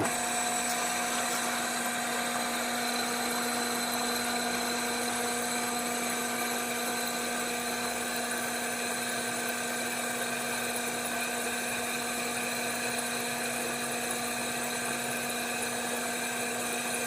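Drill press running steadily with a 1/2-inch split-tip drill bit pressed into a hardened steel excavator pin, giving an even, unchanging tone. The bit is making no progress on the hard steel.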